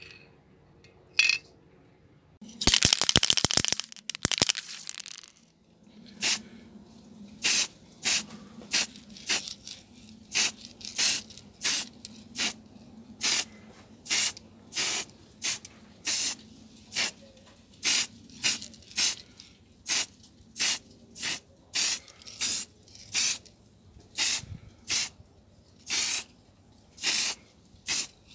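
Aerosol can of grey primer spray paint: a click, then the mixing ball rattling fast as the can is shaken for about two seconds. This is followed by a long series of short spray bursts, a little more than one a second, each a brief hiss, as primer goes onto an alloy wheel in light passes.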